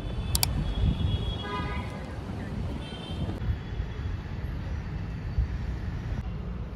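Steady road traffic rumble, with a sharp click near the start and a few brief high tones a couple of seconds in.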